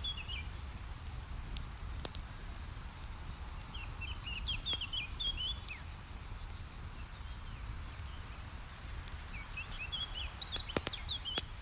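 Campfire crackling with a few sharp pops over a steady low rumble, while a songbird sings three short, quick chirping phrases about five seconds apart.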